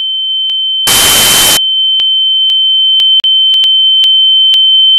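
A loud, steady, high-pitched television test tone, as played over colour bars, growing slowly louder. About a second in, it is joined by under a second of TV static hiss, and faint clicks are scattered through it.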